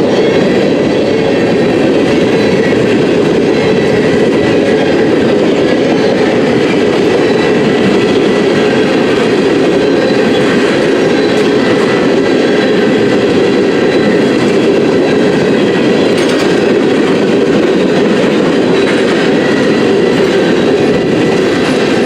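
CN freight train rolling past close by: a steady, loud rumble of steel wheels on rail that runs on without a break.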